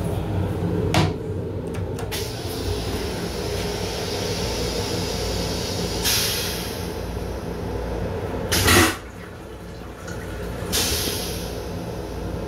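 Toilet in an M7 railcar restroom flushing. A sharp click comes about a second in, a hiss rises about six seconds in and fades, and a loud short whoosh about eight and a half seconds in is the loudest sound, with a further fading hiss a couple of seconds later. The train's steady hum runs underneath.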